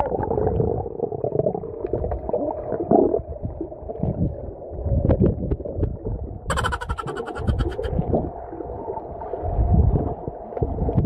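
Pool water heard through a submerged camera's microphone: a muffled, low rumbling of moving water with scattered bubbling and a steady hum. A short stretch of higher sound comes about six and a half seconds in.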